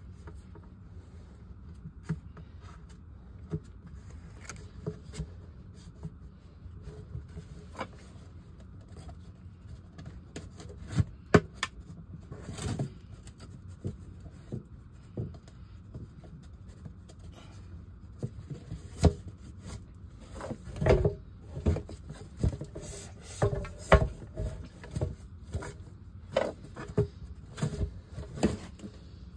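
Hands handling a PVC sump discharge pipe and the sump basin lid: rubbing and scraping with scattered sharp knocks, sparse at first and coming thick and fast in the second half, over a low steady hum.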